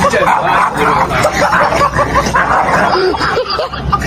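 Small dog barking rapidly, several short barks a second.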